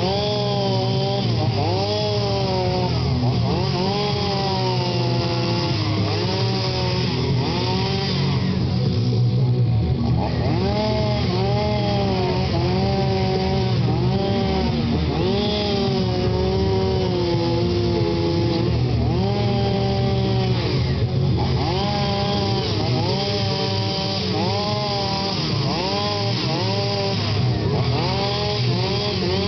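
A two-stroke chainsaw carving wood, revving up and down over and over. Each rise and fall in pitch lasts a second or two, with a short let-off about a third of the way in.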